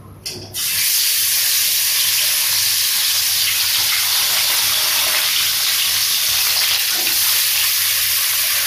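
Whole koi fish (climbing perch) sizzling as it goes into hot oil in an aluminium kadai: a loud, steady hiss of frying that starts about half a second in.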